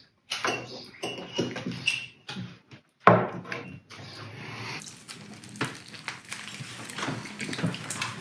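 People eating cream-filled tompoes pastries messily: wet chewing, smacking and munching, with cutlery clinking on plates and a sharp knock about three seconds in.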